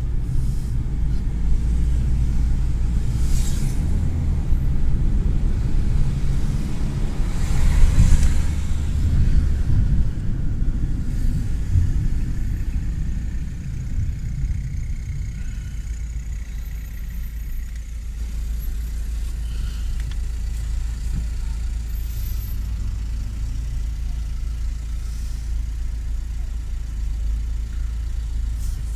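Low engine and road rumble heard from inside a car's cabin while driving, swelling louder around eight seconds in. From about fourteen seconds on it settles to a quieter, steady idle rumble as the car stands at a red light.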